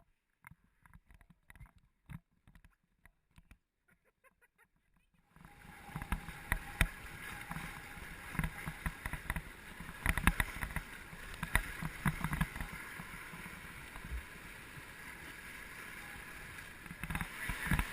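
Faint scattered clicks for about five seconds, then river water rushing and splashing around a raft, with frequent sharp knocks and splashes.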